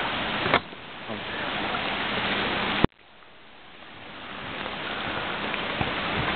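Steady rushing of water from the flood, an even hiss without tones. It is broken by two sharp clicks, about half a second in and near three seconds in. After the second click the rushing drops away almost to nothing and slowly swells back.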